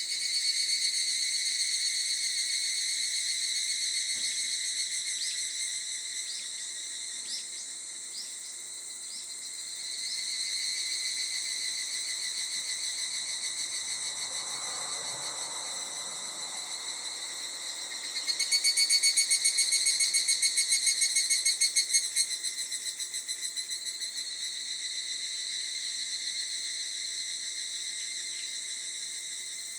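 Insects chirring steadily in shrill high tones, with a louder, rapidly pulsing call for a few seconds past the middle.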